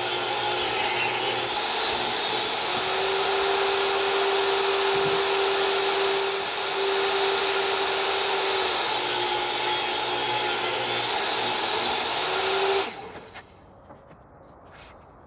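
Electric power tool cutting into maple wood, its motor running steadily with the pitch dipping a few times under load, then shutting off abruptly about thirteen seconds in.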